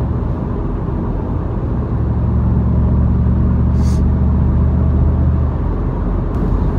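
Interior noise of a 1997 Camaro Z28 on the move: the LT1 V8 and road noise. About two seconds in, the engine drone grows louder at a steady pitch, then eases back at about five and a half seconds.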